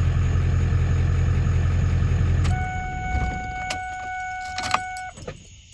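Ford 7.3 L Power Stroke turbo-diesel V8 idling, heard from inside the cab, then switched off about two and a half seconds in. A steady electronic warning tone follows for about two and a half seconds, with several sharp clicks and a jingle of keys.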